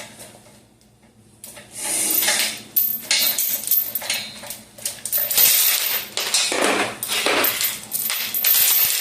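Small cheap padlock clinking and rattling, metal on metal, as it is worked on to defeat it. After a quiet first second comes a dense run of sharp clicks and rattles.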